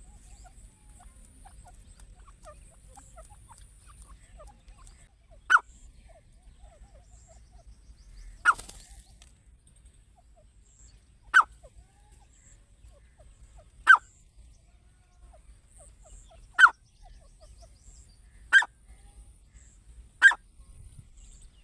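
A teetar partridge giving seven short single calls, each a quick falling note, spaced about two to three seconds apart.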